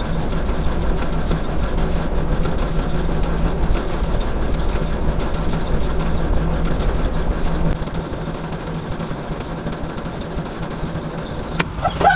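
Heavy truck engine idling, heard from inside the cab: a steady hum over a deep rumble. The rumble drops off about two-thirds of the way in, and a brief sharp sound comes right at the end.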